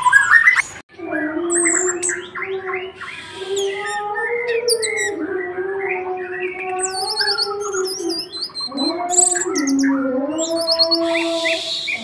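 Caged songbird singing: quick high chirps and whistled notes, some repeated in rapid runs. Under it runs a steady low tone that holds for seconds and changes pitch in steps.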